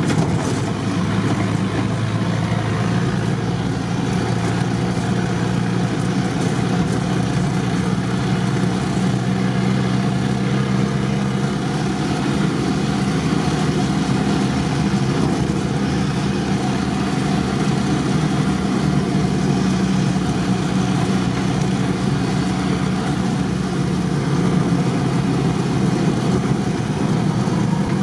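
Modified UAZ off-road vehicle's engine running steadily as it drives along, an even drone with no revving or gear changes.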